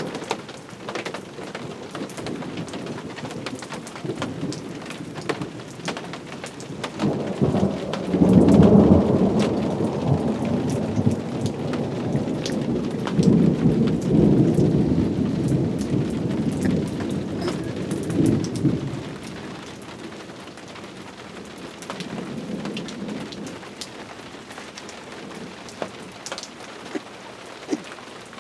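Steady rain falling, with single drops ticking close by, and a long roll of thunder that builds about seven seconds in, peaks soon after and rumbles on for about ten seconds before fading. A fainter rumble of thunder follows a few seconds later.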